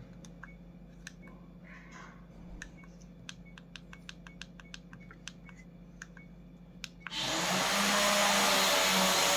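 Light clicks of an action camera's buttons being pressed while it is being switched off. About seven seconds in, a much louder steady rushing noise starts suddenly and carries on.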